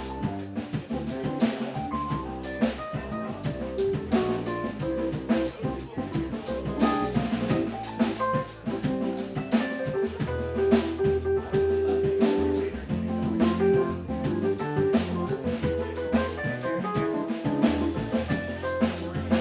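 Live jazz combo playing a Christmas tune: a drum kit keeps a steady beat with cymbals under a walking electric bass, with keyboard and saxophone carrying the melody.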